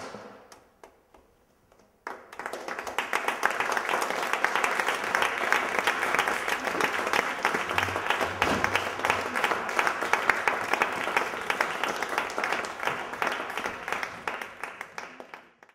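Theatre audience applauding at the end of a dance performance: a few scattered claps, then about two seconds in, full applause that fades out near the end.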